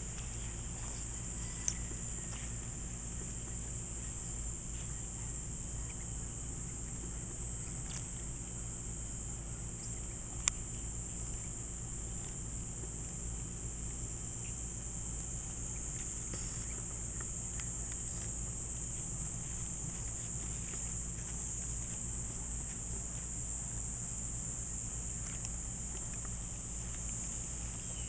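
Steady high-pitched chorus of summer insects, with two sharp clicks, one about two seconds in and a louder one about ten seconds in.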